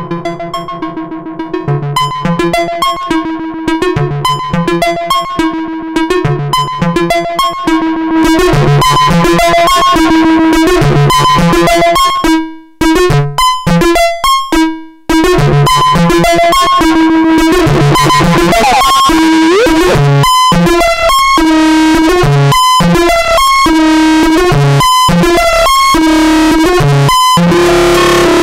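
Eurorack synthesizer playing a repeating pattern of pitched notes through a Sovage Engineering Faille Temporelle distortion-echo module, with no control voltage on it. About eight seconds in the sound turns denser and more distorted, it stutters and drops out briefly a few times around the middle, and later it breaks with short glitchy cuts as the distortion is tweaked.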